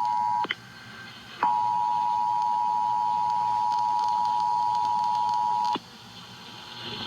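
EAS two-tone attention signal: two steady tones together, just under 1 kHz, that cut out with a click about half a second in, come back about a second later, and run on for about four seconds before cutting off. A faint hiss follows near the end.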